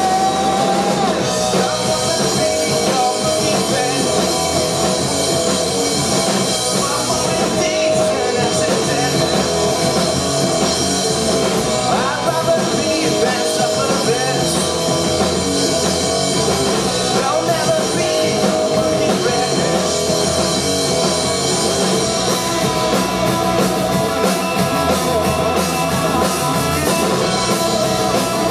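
Live rock band playing: electric guitars through Marshall amplifiers and a drum kit, loud and steady throughout.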